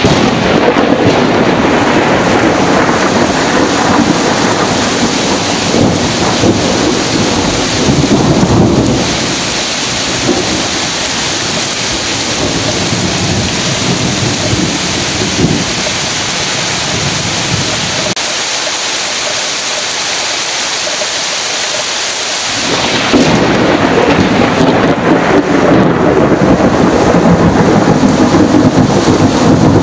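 Heavy thunderstorm rain hissing steadily, with thunder rumbling that dies away over the first nine seconds or so. About 23 seconds in, a new loud peal of thunder breaks out and keeps rumbling.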